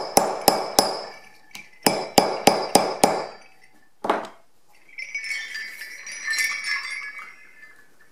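Hammer striking a rivet setter to set rivets through a leather strap on a metal plate: four sharp blows in quick succession, then five more about two seconds in, and a single knock about four seconds in. Then the antique sleigh bells on the strap jingle for about two and a half seconds as the strap is lifted.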